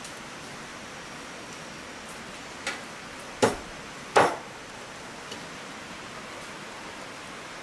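Steady hiss of light rain, broken by three sharp knocks under a second apart near the middle, the last two the loudest.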